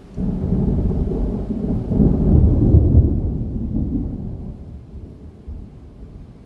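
A clap of thunder rolling overhead: a low rumble that comes in suddenly, swells to its loudest about two to three seconds in, then dies away over the next few seconds.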